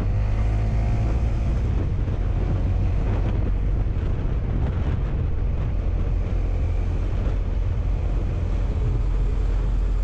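Honda motorcycle engine running at a steady cruise, with wind rushing over the microphone.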